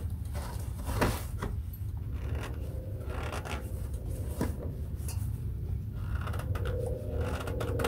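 Cloth rubbing and handling noises, a rag wiped around the oil filter and a sweatshirt brushing close by, with a few light clicks and knocks, over a steady low hum.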